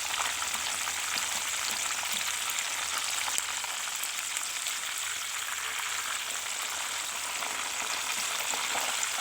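Food frying in hot oil: a steady sizzle with many small crackling pops.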